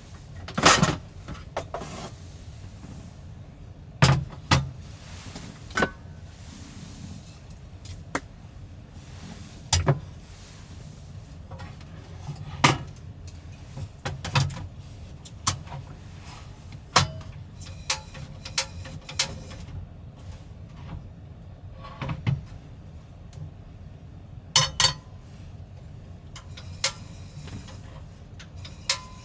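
Scattered sharp knocks and clicks at irregular intervals, some single and some in quick pairs, over a low steady rumble.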